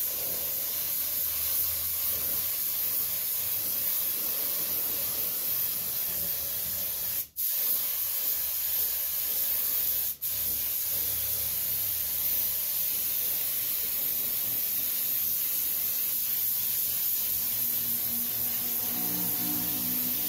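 Compressed-air paint spray gun hissing steadily as it sprays black paint, cutting out briefly twice, about seven and ten seconds in.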